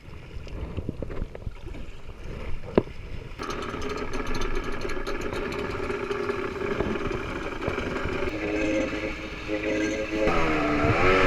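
Kawasaki 650SX jet ski's two-stroke engine running over a noisy rumble of wind and water. About three seconds in its note comes in strongly, and near the end it revs up, the pitch rising and wavering.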